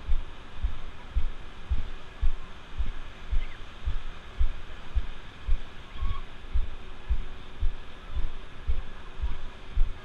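Dull low thumps about twice a second, footsteps on wet sand jolting the body-worn camera as it walks, over a steady hiss of ocean surf and faint distant beach voices.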